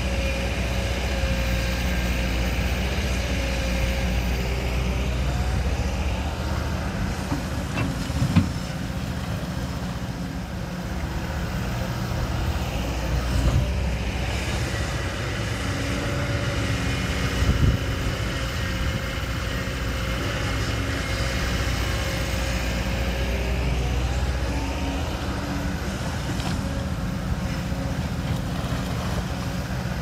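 Heavy diesel earthmoving machinery running steadily under load, its pitch rising twice, with two sharp knocks about a third and two thirds of the way through.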